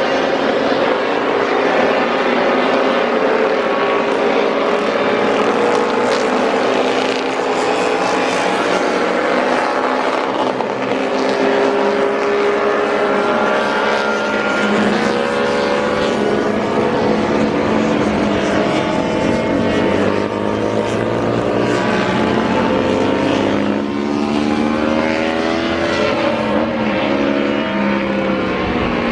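Several motorcycle engines running together, their pitches rising and falling as they rev. The sound is loud and continuous, with overlapping engine tones throughout.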